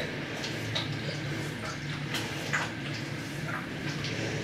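Faint handling sounds: soft rustles and a few small ticks as a plastic applicator bottle is pressed against the scalp and worked through the hair, over a steady low hum.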